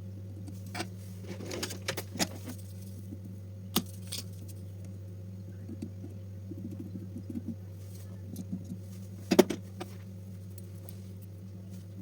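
Scattered small clicks and taps of tools and small parts being handled, over a steady low hum; the loudest click comes about nine seconds in.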